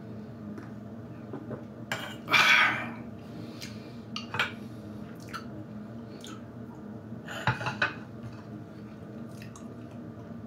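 Clay teapot and small teacup handled on a tea tray: a few sharp clinks and knocks of pottery, with a brief loud rushing noise about two and a half seconds in, over a steady low hum.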